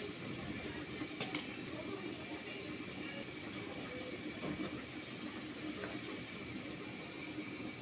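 Battered eggplant slices (begun bora) sizzling in hot oil, a steady hiss with a couple of faint clicks.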